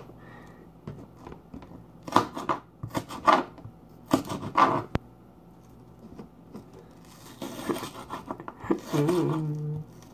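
Kitchen knife slicing and dicing onion on a cutting board: several separate crisp cutting strokes with pauses between them, and a sharp tap of the blade about five seconds in.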